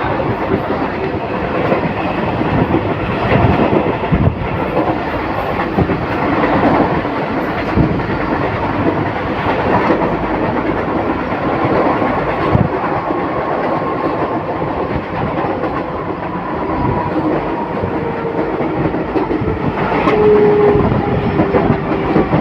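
Passenger train running along the track: a steady rumble with scattered clacks from the wheels, and a faint thin squeal towards the end.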